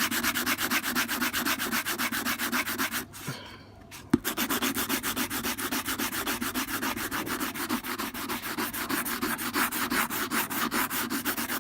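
Soldered copper heatsink base being sanded flat by hand: fast, even back-and-forth rasping strokes. They pause for about a second around three seconds in, a sharp click follows, then the sanding resumes.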